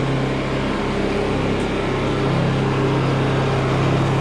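Two small Honda portable generators running steadily, their engines warming up as they burn off a little fuel before an oil change.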